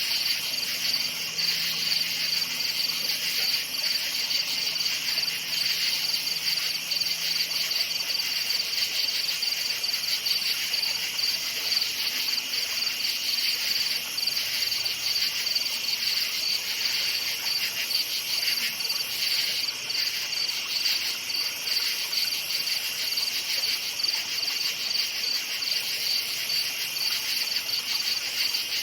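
Crickets chirping in a dense, steady chorus of fast, high-pitched trills.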